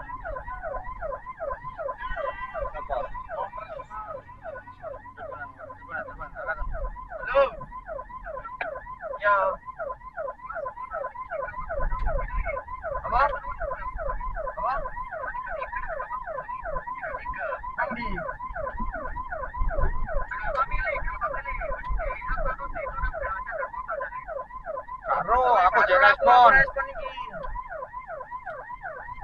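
Ambulance siren on a fast yelp, sweeping up and down about three to four times a second without a break. A louder burst of another tone cuts in over it near the end.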